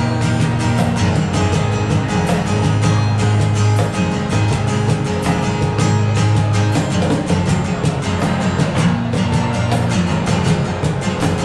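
Band music with no singing: strummed guitar over a steady beat and a strong bass line.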